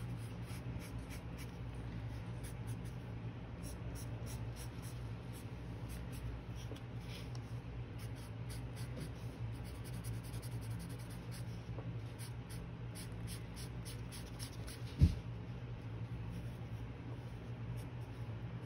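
Coloured pencil scratching on watercolour paper in many short, irregular strokes, over a steady low hum. A single low thump about fifteen seconds in.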